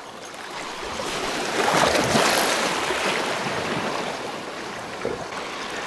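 Sea waves washing, a noisy surge that swells about a second in, is loudest around two seconds, then slowly eases off.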